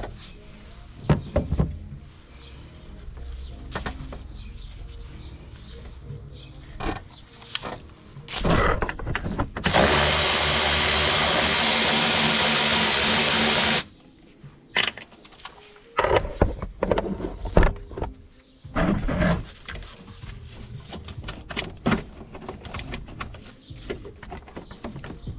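Clicks and knocks of hand tools in a car's engine bay; about ten seconds in, a cordless power tool runs steadily on a bolt for about four seconds and stops suddenly.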